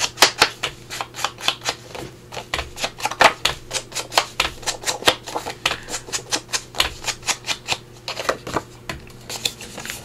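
Ink blending tool dabbed rapidly against the edges of a piece of cardstock, a quick, uneven tapping of about four to five taps a second that stops near the end.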